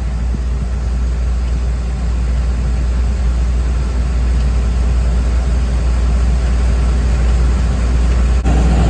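Heavy farm machinery engine running steadily with a deep, constant hum. The sound changes abruptly near the end, where a louder, rougher mid-range noise comes in.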